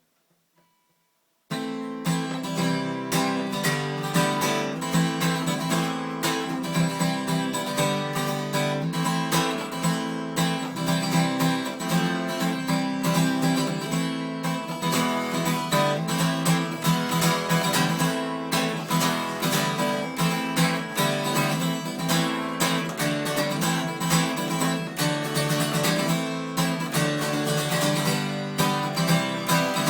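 Yamaha FG340 Mark 1 steel-string acoustic guitar being strummed, starting about a second and a half in after a brief silence.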